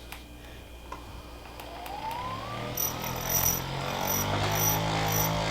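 Electric handheld massager's motor spinning up, its whine rising in pitch about two seconds in, then running as a steady hum that grows louder.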